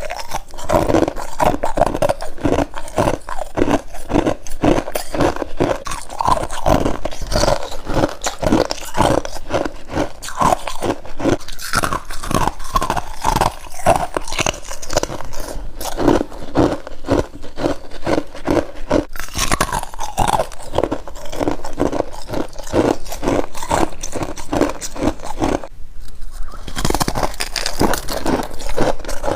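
Freezer frost being bitten and chewed close to the microphone: a continuous run of crisp crunches, several a second, with a brief break near the end.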